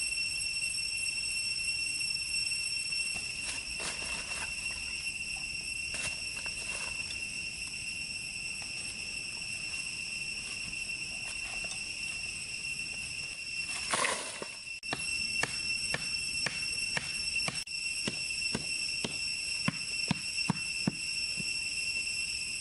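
Forest insects droning steadily at a high pitch. A run of sharp knocks, about two a second, starts just past the middle.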